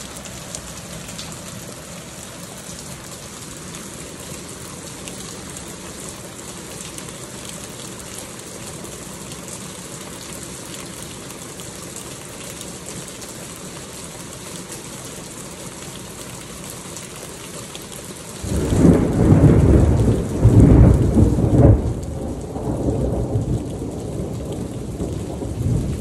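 Heavy rain falling steadily. About two-thirds of the way through, thunder breaks in with a loud, deep rumble that peaks for a few seconds and then rolls on more quietly over the rain.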